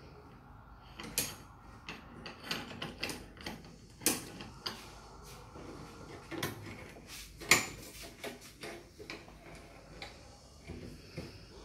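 Stainless steel surgical retractor bars and clamps clicking and knocking against each other as they are fitted and tightened together, in irregular sharp clinks, the loudest about seven and a half seconds in.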